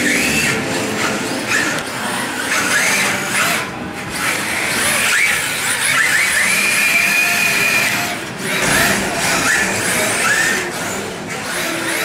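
Electric motors of radio-controlled drift cars whining, their pitch sweeping up again and again as the throttle is blipped, with one longer held whine in the middle.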